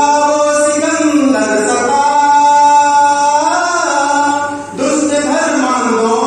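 A man singing solo in long held, gliding notes, with a short break for breath about four and a half seconds in.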